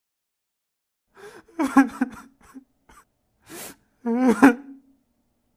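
A person crying, starting about a second in: two wavering sobbing wails with a sharp gasping breath between them.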